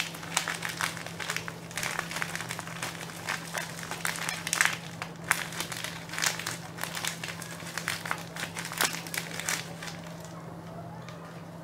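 Plastic bubble-wrap packaging being crinkled and pulled apart by hand: irregular crackling, which thins out about ten seconds in.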